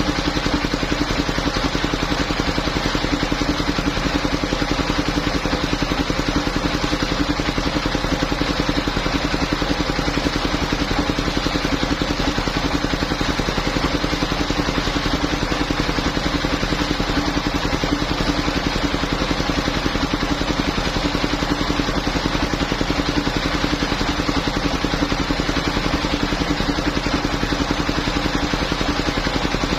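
Engine of a mobile circular sawmill running at a steady speed, with a rapid, even pulsing and a steady hum.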